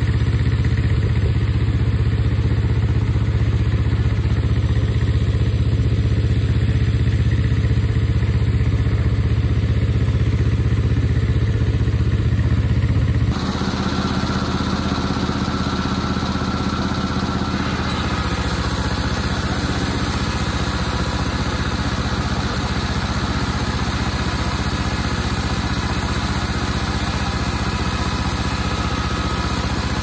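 An engine running steadily, a low, even drone. It drops abruptly in level about thirteen seconds in and changes in tone again around eighteen seconds.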